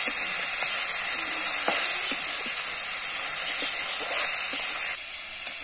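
Potatoes, flat beans and carrots sizzling as they fry in oil in a metal wok, being stirred, with short scrapes and taps of the metal spatula against the pan. The sizzle drops in level near the end.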